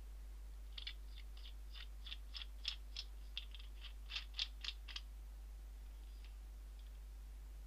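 A quick run of light clicks and ticks, about four a second, from small parts being handled and fitted onto a microscope stand's metal pillar, stopping about five seconds in. A steady low electrical hum lies under it.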